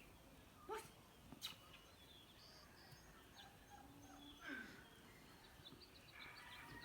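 Near silence: faint background ambience with a few faint high chirps, a soft click about a second and a half in, and a brief faint sweep near the middle.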